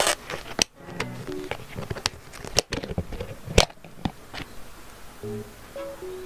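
Close-miked sounds of mixing and eating jjajangmyeon noodles: a series of sharp clicks and wet smacks at irregular intervals. Soft plucked-string background music picks up from about five seconds in.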